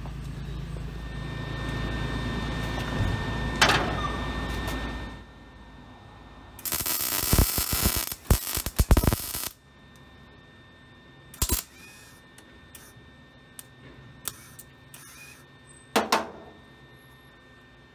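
Wire-feed welder tack-welding a steel door frame: a couple of seconds of crackling arc about a third of the way in, then a few short bursts later. A steady low rumble fills the first few seconds.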